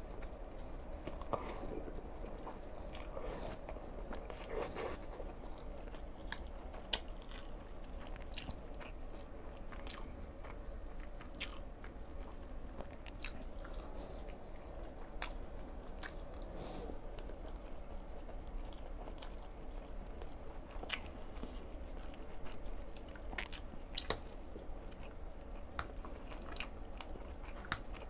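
Close-miked eating: slurping Chapagetti black bean noodles, then chewing noodles and beef sausage, with many short wet mouth clicks and smacks.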